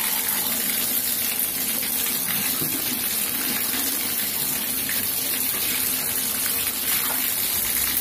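Water running full and steady from a Delta tub-and-shower valve, its handle turned all the way to the hot end.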